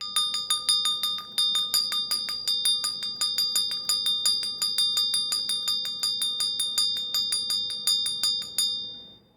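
A small metal bell rung rapidly and steadily, about five strikes a second, its bright ring carrying between strikes. The ringing stops near the end and fades away.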